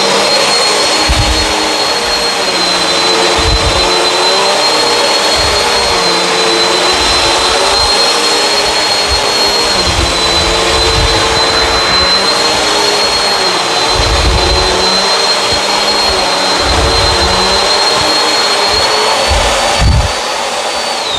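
Bissell CleanView Swivel upright vacuum running on carpet: a steady motor whine over airflow noise, with irregular low bumps as it is pushed back and forth. Right at the end the motor is switched off and its whine starts to fall.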